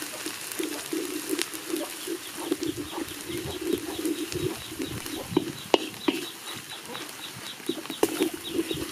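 Birds calling: a lower call repeated several times a second throughout, joined from a few seconds in by a quick series of short high chirps. A few sharp knocks stand out, the loudest about two thirds of the way through.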